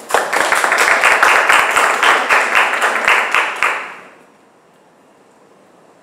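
People applauding, with many hands clapping together. The clapping fades out about four seconds in.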